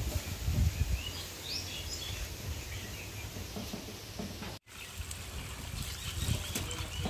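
Outdoor ambience with birds chirping in short high calls; the sound drops out briefly about four and a half seconds in, and then water from a garden hose splashes over green mangoes being rinsed in a tray.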